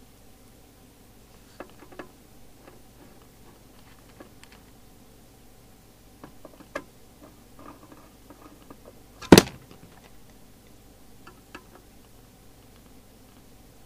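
Handling noises from a CB radio being put back together on the bench: scattered small clicks and taps, with one sharp knock about nine seconds in.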